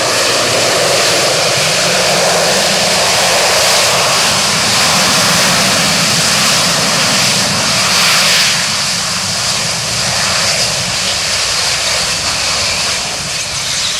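Sea Harrier FA2's Rolls-Royce Pegasus vectored-thrust turbofan running at high power: a loud, steady jet noise with a strong high hiss.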